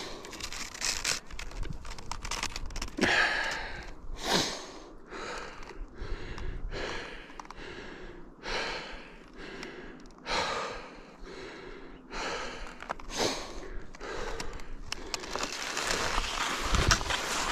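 A cross-country skier breathing hard, in short noisy breaths about once a second. Near the end a steadier hiss of skis running in the groomed track takes over.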